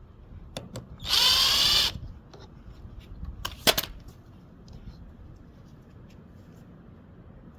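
Power driver with a 9/32 socket spinning out a small screw: one short whir of just under a second, about a second in, rising in pitch. A few sharp metal clicks follow a little after the middle, then low background.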